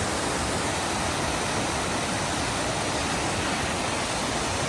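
Alberta Falls, a mountain waterfall, rushing: a steady, even wash of falling water.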